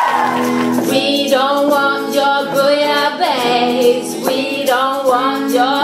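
Live band song: women's voices singing over electric guitar, the voices coming in about a second in.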